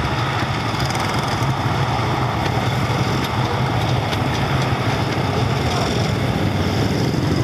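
Steady engine drone with a constant low hum, holding level throughout.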